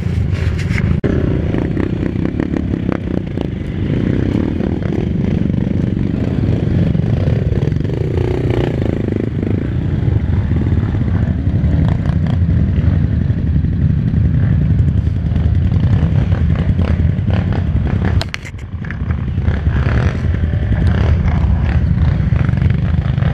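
Dirt bike engine running at low speed on a rough wooded trail, with frequent knocks and clatter from the bike over the terrain; the sound drops briefly about 18 seconds in.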